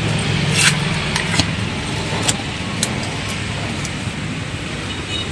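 A motor vehicle's engine running close by with street noise, its low hum dying away after a second or two. A few sharp clicks and knocks are scattered over it.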